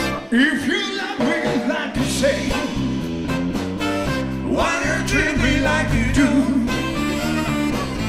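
Live blues band playing the song's instrumental introduction. A saxophone plays a wavering melody over electric guitar, and bass and drums come in fully about two seconds in.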